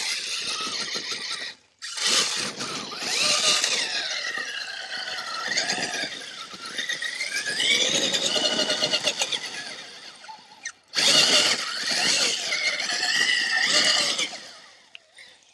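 Axial SCX6 RC crawler's electric motor and drivetrain whining, the pitch rising and falling with the throttle. It runs in bursts, with short breaks about two seconds in and again near eleven seconds.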